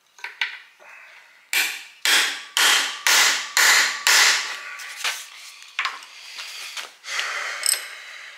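Hand tools on the cast-iron block of a 1946 Ford flathead V8, a ratchet and socket working a seized bolt by the water pump. There is a run of about six sharp metal strikes about two a second, with a faint ringing between them, then lighter clanks and a scrape near the end.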